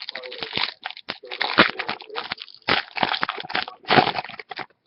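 Crinkling and crunching of a trading-card pack wrapper being handled and opened close to the microphone, with two sharper loud knocks about a second and a half in and near the end.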